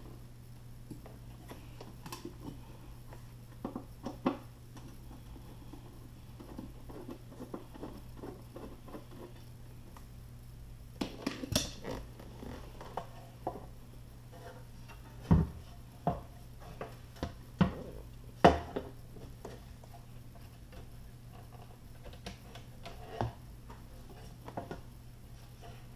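Scattered clicks, scrapes and knocks of hands working on a car's Harman Kardon amplifier and its metal housing: tools at screws, the unit being shifted and its wiring harness connectors handled. A few louder knocks come in the middle, over a low steady hum.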